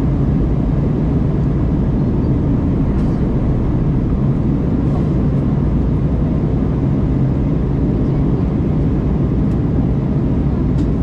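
Steady low rumble of airflow and engines inside the cabin of an Airbus A319 airliner with CFM56 turbofans, heard from a seat behind the wing, with a few faint ticks over it.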